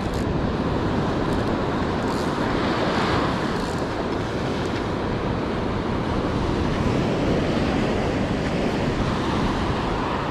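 Steady ocean surf washing onto the beach, with wind noise on the microphone.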